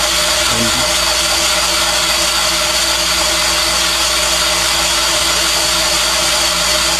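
Van Norman 777 boring bar running steadily, its motor driving the spinning cutter that takes metal off an engine cylinder wall to bore it 40 thousandths oversize. A constant whine of steady tones over an even hiss, with no change in speed.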